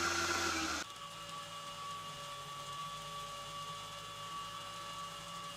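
Loud rushing machine noise over a low hum cuts off abruptly under a second in. It gives way to a quieter, steady industrial machinery hum with a few faint held tones.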